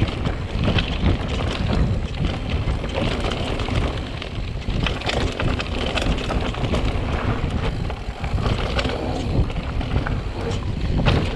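Mountain bike riding over dirt singletrack: a steady rumble of tyres and wind buffeting the camera microphone, with frequent rattling clicks from the bike over rough ground.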